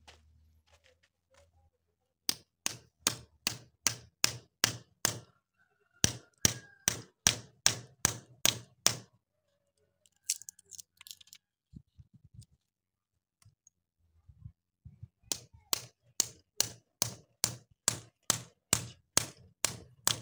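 A hatchet head hammers a thin metal blade wedged between a wooden block and a cow's hoof, working the bolted-on block loose. The sharp, even knocks come about three a second in three runs, with a few seconds' pause and some faint scraping before the last run.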